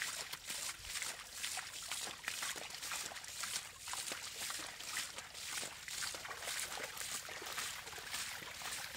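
Water splashing and trickling in a run of short swishes, about two a second.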